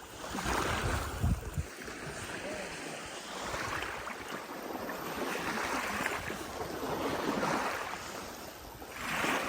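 Lake water lapping and washing in repeated swells. Wind buffets the microphone in the first second or so.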